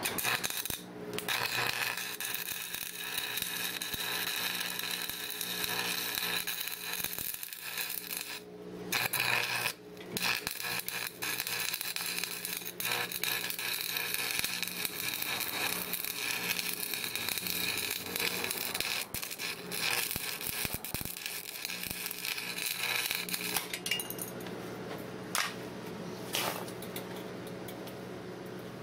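Stick welder arc crackling as a bead is laid to weld a steel socket onto a small engine's crankshaft, with a few brief breaks in the arc. About 24 seconds in the arc stops and only a steady low hum remains.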